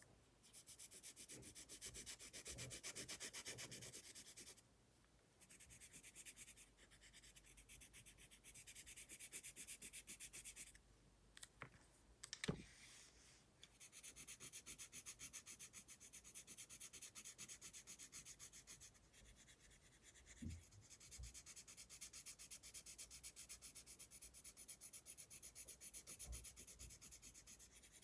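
Colored pencil shading on sketchbook paper: a fast, even, scratchy back-and-forth rubbing, paused briefly twice, with a single sharp tap about twelve seconds in.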